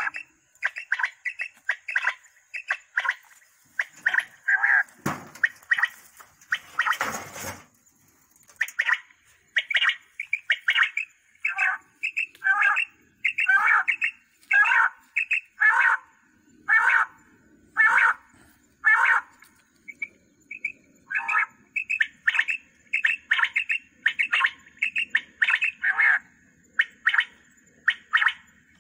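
Recorded quail calls played on repeat through a battery-powered horn loudspeaker used as a hunter's quail caller: short, sharp calls in quick repeating groups. A brief clatter sounds about seven seconds in.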